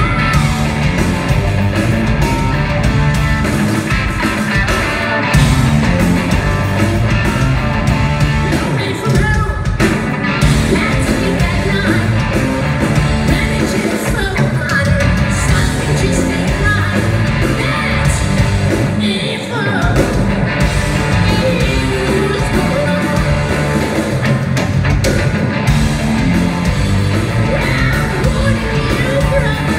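Live rock band playing loudly: a male singer over electric guitar, bass and drums, heard from within the concert crowd.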